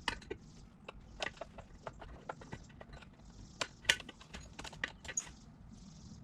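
Scattered clicks and light metallic knocks of hand tools and parts being handled while the carburettors are taken off a 1972 Honda CB450, the sharpest knock about four seconds in.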